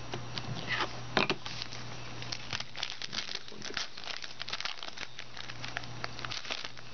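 Foil trading-card pack wrapper crinkling and tearing as it is opened by hand, a run of irregular small crackles, with a couple of louder rustles about a second in.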